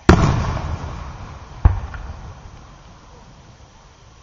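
Aerial firework shells bursting overhead: a loud boom just after the start and a second sharp bang about a second and a half later, each followed by a low rumble that dies away slowly.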